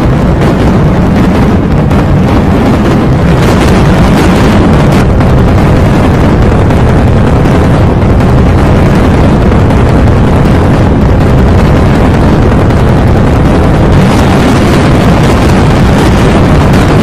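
A logo's audio overdriven by stacked video-editing effects into a constant wall of harsh, clipped noise, very loud and heavy in the bass, with no tune or voice left in it.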